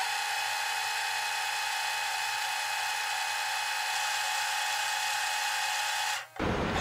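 Videotape fast-forward sound effect: a steady, high whirring hiss with a constant whine. It cuts off suddenly near the end.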